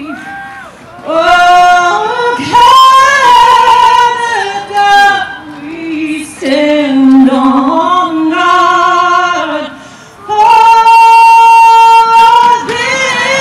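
A woman singing a national anthem in long held notes, ending on a high note held for about two seconds near the end.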